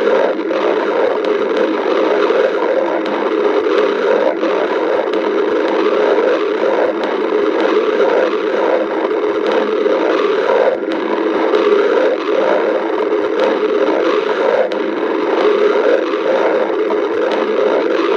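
A person's stomach growling loudly and without pause, a continuous gurgling rumble that pulses about three times a second.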